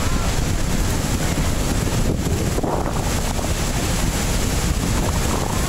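Steady roar of Niagara's American Falls pouring onto the boulders at its base, heard up close from the water, with wind buffeting the microphone.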